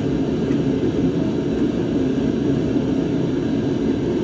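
Steady, unchanging whir of a running motor or blower, with a few faint clicks over it.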